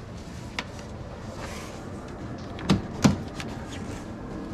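Plastic engine-bay trim being handled and pulled loose: a few sharp clicks and knocks, with two louder knocks about three seconds in and lighter ticks after them.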